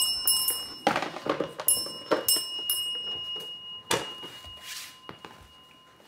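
A small handheld metal bell rung several times, its high clear tone ringing on and slowly fading, mixed with loose knocks and clatters; a last sharp knock comes about four seconds in.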